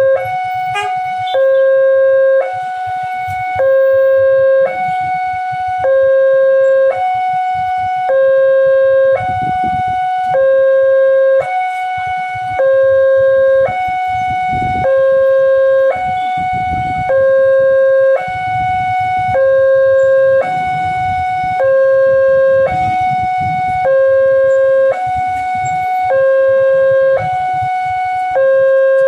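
Railway level-crossing warning alarm: a loud electronic two-tone sound that alternates between a lower and a higher tone about once a second, signalling that the barriers are down for an approaching train. Road traffic rumbles underneath.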